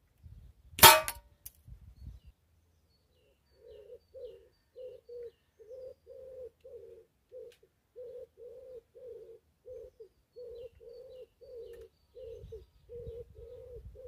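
A single shot from a BSA Lightning XL SE .177 air rifle about a second in: a sharp crack with a few small clicks right after. From about three seconds in, a pigeon coos in repeated phrases of low notes.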